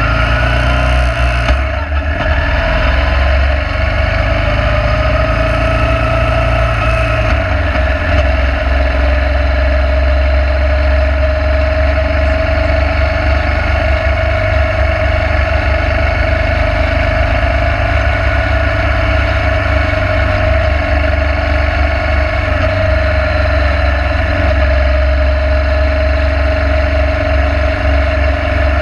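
Motorcycle engine running at cruising speed under heavy wind rumble on the microphone. The engine pitch climbs over the first couple of seconds, dips briefly, then holds steady.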